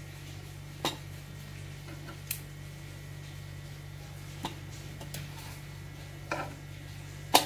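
Metal tongs and chicken leg pieces clinking and knocking on a stainless steel plate as the pieces are set down, about five separate light clinks with the loudest near the end, over a steady low hum.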